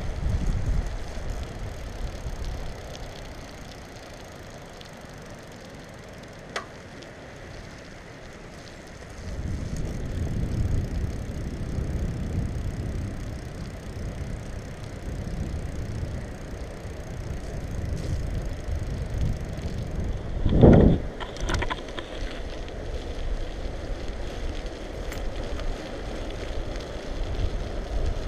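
Wind noise on the GoPro's microphone and road noise from a bicycle riding on wet asphalt. The noise eases off for a few seconds, then picks up again about nine seconds in. About twenty seconds in comes a single sharp knock, the loudest sound.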